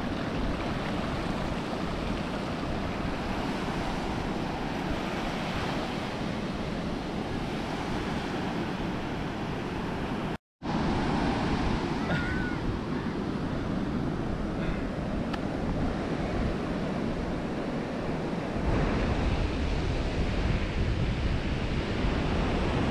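Ocean surf breaking and washing up a sandy beach in a steady rush, with wind rumbling on the microphone, heavier near the end. The sound cuts out for a moment about ten seconds in.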